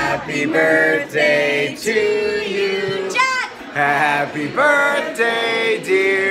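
Several voices, men and women, singing together in long, drawn-out held notes.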